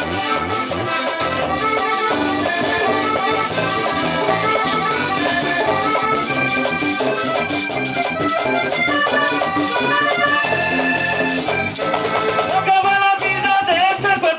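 Live vallenato band playing an instrumental passage, led by a button accordion over electric bass, congas and shaken percussion, with a steady driving rhythm.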